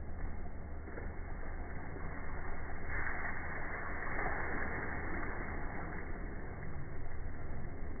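A steady low mechanical hum under a haze of noise, with a louder rush of noise from about three to five seconds in.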